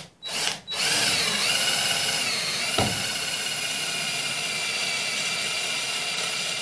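Cordless drill boring a hole through a thin red-painted metal plate. After two short bursts, the drill runs steadily from about a second in, its whine rising and then holding a steady pitch.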